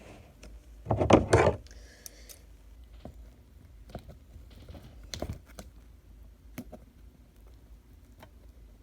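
Hands working at a watch's packaging: a loud burst of handling noise about a second in, then scattered small clicks and taps.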